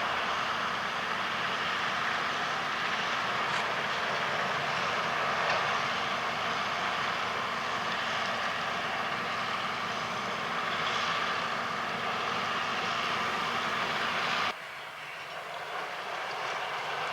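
John Deere 6830 tractor pulling a Grimme SE 150-60 potato harvester, engine and harvester machinery running steadily. About fourteen seconds in the sound drops suddenly to a quieter level.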